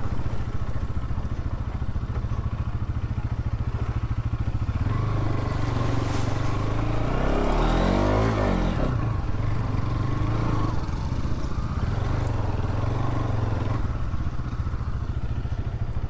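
Motorcycle engine running at low speed on a rough dirt trail, with a brief rise and fall in revs about halfway through.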